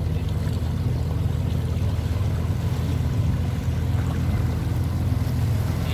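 Tour boat's engine running steadily, a low even hum with no change in speed.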